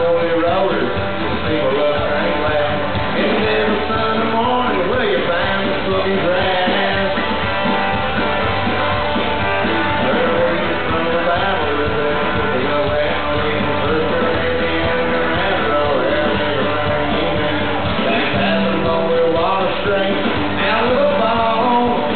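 Live red dirt country-rock band playing: acoustic guitar strummed over a drum kit, with a man singing lead vocals.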